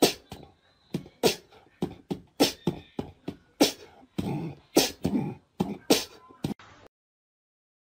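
Puppies barking at each other in a quick run of short, sharp barks, about two a second, that stops shortly before the end.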